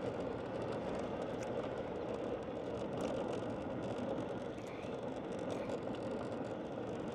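Steady road and engine noise of a car driving along at moderate speed.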